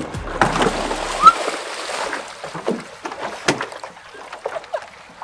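A splash as a person drops off a kayak into shallow water, with a brief high rising squeal about a second in. Water sloshes and splashes afterwards as she moves about in it.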